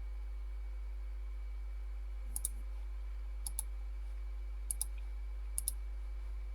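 Four sharp double clicks about a second apart, starting about two seconds in: a button or mouse being pressed and released during a test of the PLC program. A steady low electrical hum runs underneath.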